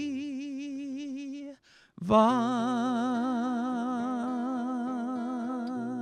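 A male singer holds two long sung notes with wide vibrato, breaking briefly for breath about a second and a half in, over soft acoustic guitar accompaniment.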